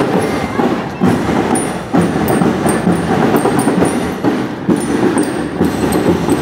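Drum and lyre marching band playing: a dense, steady run of drumming with short, high bell-lyre notes ringing over it.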